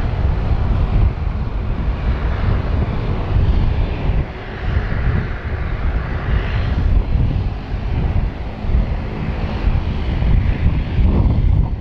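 Airbus A320neo airliner at take-off power, its twin jet engines giving a loud, deep, rough rumble as it rolls and climbs away.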